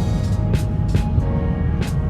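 Background music with heavy bass, held tones and recurring cymbal-like hits.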